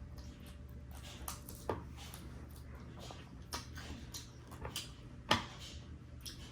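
Faint eating sounds: scattered short clicks and smacks from chewing and handling food, the loudest about five seconds in, over a low steady hum.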